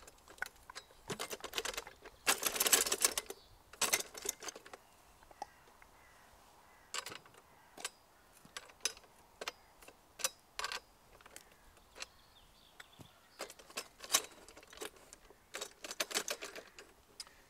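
Scattered clicks and light metallic clatter from the aluminium frame of an Eco 36 chainsaw mill being handled and adjusted by hand, with denser runs of rattling about two seconds in and again near the end.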